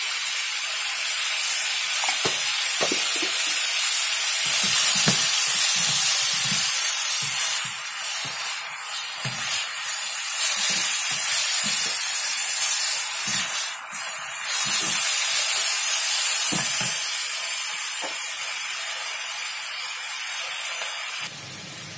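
Cauliflower and chicken strips sizzling in a hot wok while a spatula stirs and tosses them, with frequent short knocks and scrapes against the pan. The hiss drops off abruptly near the end.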